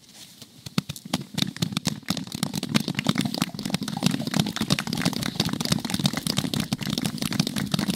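Audience clapping: scattered claps at first, swelling within the first couple of seconds into steady applause.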